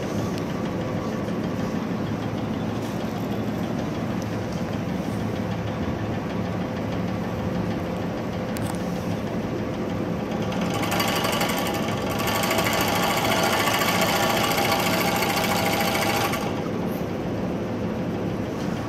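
Hegner Multimax-18 variable-speed scroll saw running steadily without cutting. About eleven seconds in the speed is turned up and the sound grows louder and brighter, then drops back about five seconds later.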